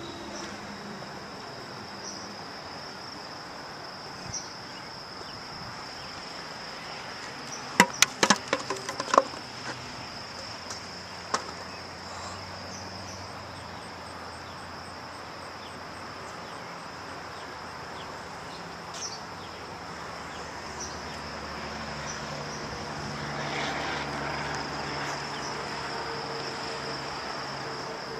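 Steady high-pitched trilling of insects outdoors, with a quick run of sharp clicks about a third of the way in. Late on a broader swell of noise rises and fades, as a vehicle passes.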